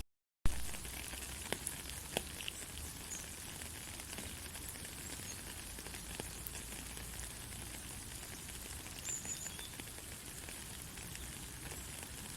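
Steady rain falling in a forest, an even hiss with scattered drops ticking and pattering. There are a few faint, short high chirps, one about nine seconds in. The sound cuts out for about half a second at the start and comes back with a sharp click.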